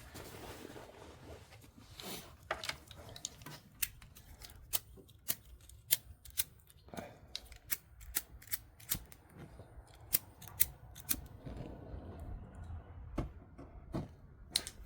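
Irregular sharp clicks, roughly one or two a second, with light rustling from hands handling a wire, its connector and heat shrink tubing.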